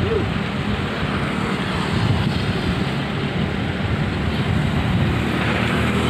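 Wind buffeting the microphone: a loud, steady rushing noise with an uneven low rumble.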